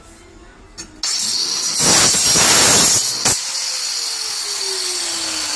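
A power saw switches on about a second in and runs, cutting off a leftover nail in the old window frame. The cutting is loudest for about a second in the middle, with a sharp knock just after and a tone that slowly falls in pitch near the end.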